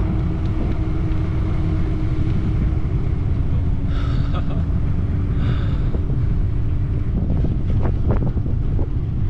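Wind buffeting an action camera's microphone while riding a bicycle at speed on a road, a loud steady rumble. A steady hum runs beneath it and stops about seven seconds in, followed by a few brief knocks.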